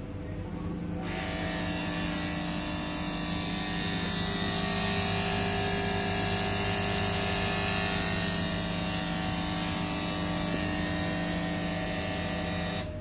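Microwave oven's high-voltage transformer humming on mains power: a steady electrical hum that switches on about a second in and cuts off suddenly near the end.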